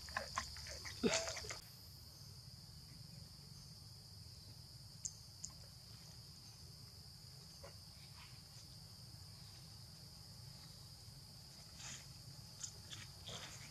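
A steady high-pitched insect drone, with a few short squeaky monkey calls and clicks in the first second and a half, then only scattered faint clicks.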